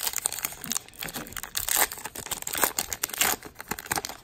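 Wrapper of a Topps Gypsy Queen baseball card pack being torn open and crinkled in the hands, in irregular crackling bursts.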